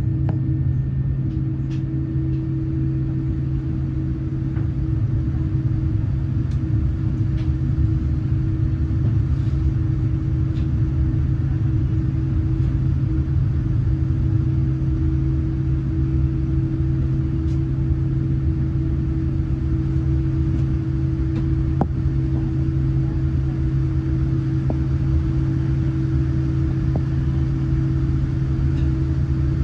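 Steady low rumble and hum of a Boeing 787-9's jet engines heard from inside the passenger cabin, with a constant droning tone and a few faint clicks and rattles.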